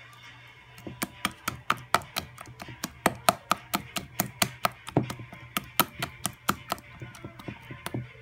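A hand working wet pizza-dough batter in a plastic bowl, making quick wet slapping clicks about four a second.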